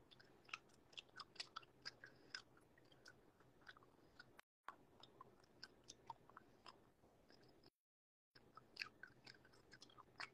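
Gum chewing with faint, wet mouth smacks and clicks, irregular, a few a second. The audio drops out completely twice for a moment.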